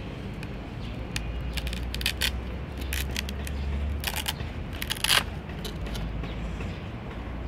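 Fingers handling a stiff cardboard VR viewer kit and peeling the backing paper off adhesive pads: scattered crackles and scrapes, with a sharper crackle about five seconds in, over a steady low rumble.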